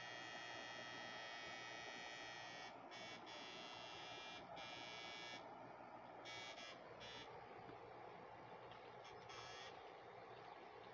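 Electric fishing inverter (Susan 1030sMP, 4000 W) buzzing while its probes shock the water: a faint high electronic buzz of many steady tones that breaks off and comes back in patches, with a lower tone sliding down in pitch about seven seconds in.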